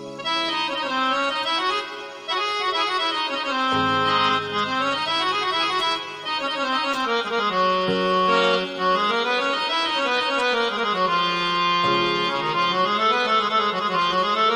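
Casio CTK-2550 electronic keyboard playing a melody over sustained notes on an accordion-like reed tone, one of its Indian-style preset voices.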